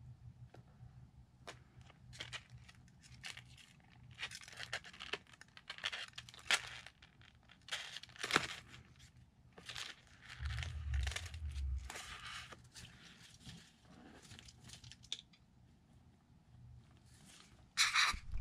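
Irregular scratching, rustling and sharp clicks as a young lizard moves over its enclosure floor and takes a pinky mouse from metal feeding tongs, with a brief louder scrape near the end.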